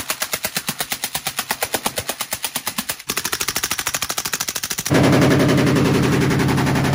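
Full-auto AK-pattern rifles firing long continuous bursts of rapid, evenly spaced shots, in three cut-together stretches: two suppressed rifles, then, from about five seconds in, a noticeably louder unsuppressed short-barrelled AK.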